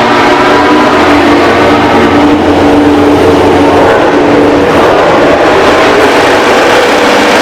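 MotoGP race motorcycle engines running at high revs, loud. The pitch holds steady for a few seconds, turns rough, then climbs again near the end.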